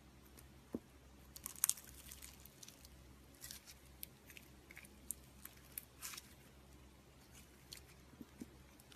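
Homemade slime being squished and poked by hand: faint, scattered small clicks and crackles at an irregular pace, loudest a couple of times.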